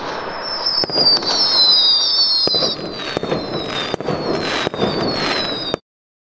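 Fireworks-like sound effect: dense crackling with sharp bangs and several high whistles gliding slowly downward. It cuts off abruptly near the end.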